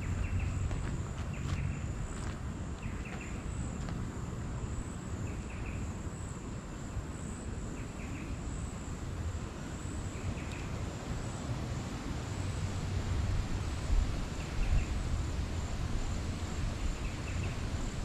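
Insects trilling steadily at a high pitch, with short chirps near 2.5 kHz every second or two over a low rumble.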